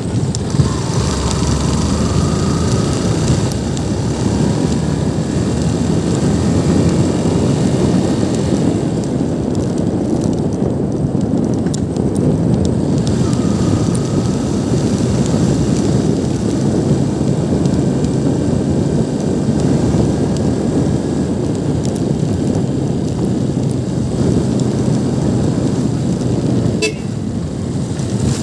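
Motorcycle riding at steady speed, its engine running under loud wind noise on the microphone. About a second before the end there is a sharp click and the sound drops as the bike eases off.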